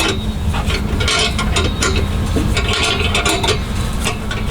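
A wrench tightening the exhaust's middle clamp: a steady, busy run of irregular metal clicks and scraping over a low rumble.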